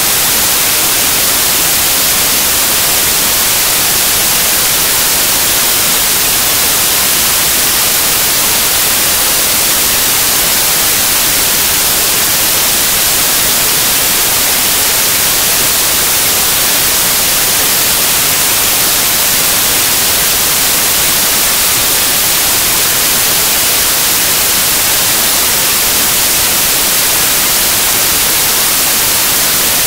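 Loud, unchanging static hiss like white noise, brighter in the high range, with no engine, motor or wind rise and fall in it.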